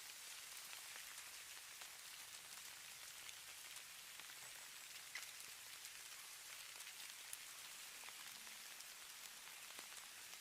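Light precipitation falling steadily on a surface: a faint, even hiss with scattered tiny ticks of flakes or drops landing.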